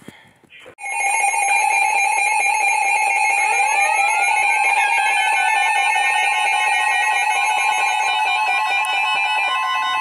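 Emergency Alert System attention signal: the loud, steady two-tone alarm starts about a second in and sounds without a break, with faint gliding tones mixed in from a few seconds in. It marks the start of an emergency alert broadcast.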